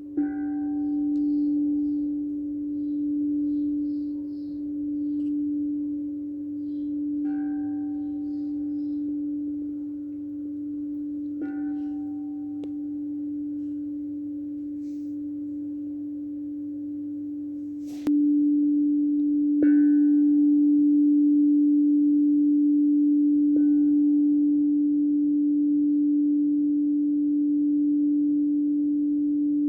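Wind chimes sounding single ringing notes every few seconds, about six times, over a steady low drone that swells and fades slowly. A sharp click about two-thirds of the way through, after which the drone is louder.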